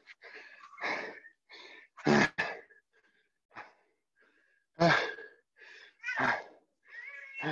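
A person breathing hard from exertion during burpees: separate heavy, gasping breaths every second or so, a few of them voiced like short grunts.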